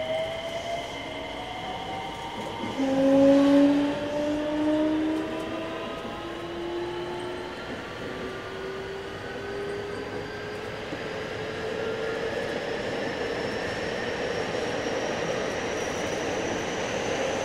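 JR West 321 series electric train accelerating: the Hitachi IGBT VVVF inverter and traction motors whine in several tones that rise steadily in pitch as the train gathers speed, over wheel and running noise. A high steady whine drops out about three seconds in, and the rising whine is loudest just after.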